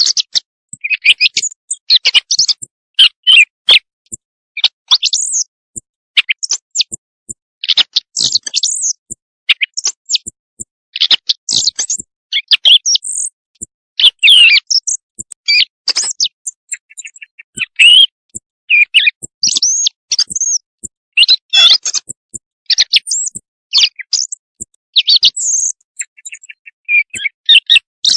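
Recorded quail calls played as a night-time hunting lure. They come as rapid runs of short, high chirps separated by brief, completely silent gaps, repeating over and over.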